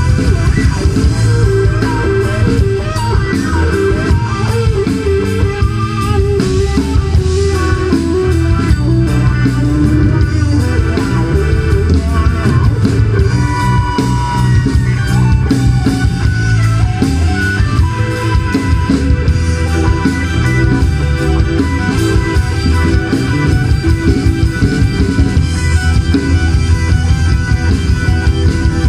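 Live rock band playing: electric guitar over bass guitar and drum kit, with keyboard.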